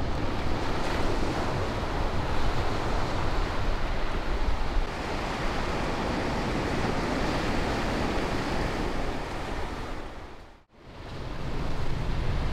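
Surf breaking and washing up a sandy beach, a steady rushing wash, with wind buffeting the microphone. Near the end the sound fades out almost to nothing for a moment and comes back.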